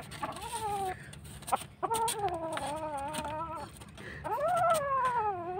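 Kitten growling and yowling through a mouthful of chicken, guarding its food against a hand: three long wavering moans, the last one louder, rising and then falling.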